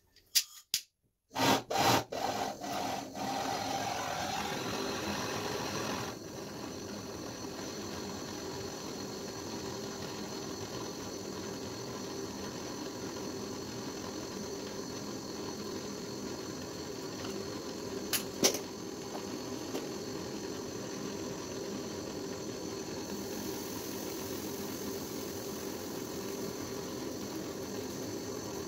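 A few sharp clicks as a hand-held gas torch is lit, then its flame hissing steadily into a steel bowl crucible of scrap silver. The hiss eases a little about six seconds in, and there is one brief sharp click about eighteen seconds in.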